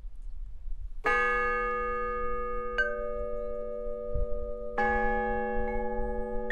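Metal chimes struck several times and left to ring: a strong strike about a second in rings on long with many overtones, a lighter note sounds near three seconds, and further strikes come near five seconds and at the very end.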